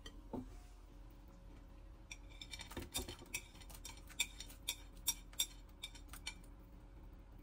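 Chopsticks clicking and tapping against a ceramic plate, a quick irregular run of sharp ticks lasting a few seconds, as goji berries are scraped off it into a pot of soup. A single knock just after the start as the glass pot lid is lifted.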